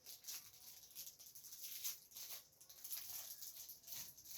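Faint, irregular crinkling and rustling of a small plastic wrapper being handled and torn open to get a toy frog out.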